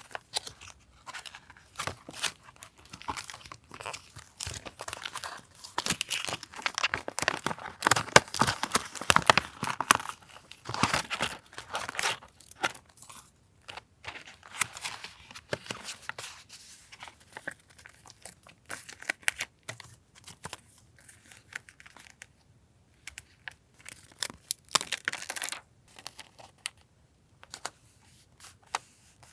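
Paper being torn and crinkled by hand for collage journaling: a long dense stretch of rustling and tearing in the first half, then shorter spells with pauses between.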